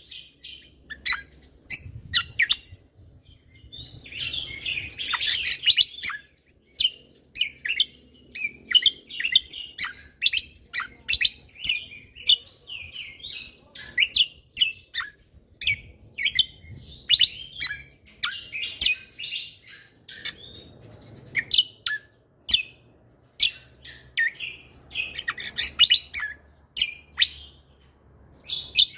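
Greater green leafbird (cucak kombo) in full song: a continuous, rapid stream of sharp, sweeping chirps and whistled notes with denser chattering phrases now and then. The song is filled with phrases copied from other birds.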